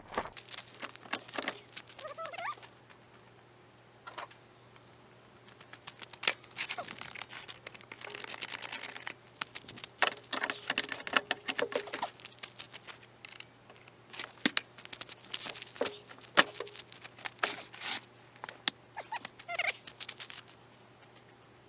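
Irregular metal knocks, clinks and scrapes of hand work with tools on a mini excavator's track and idler, over a faint steady low hum.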